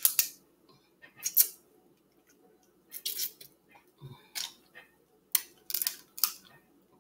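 Close-up eating sounds: a string of short, sharp mouth smacks and crunchy clicks as seafood-boil food such as oven-crisped crab legs is chewed, coming irregularly every half second to a second.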